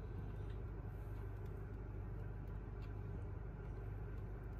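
Steady low background hum, unchanging, with a few faint light ticks.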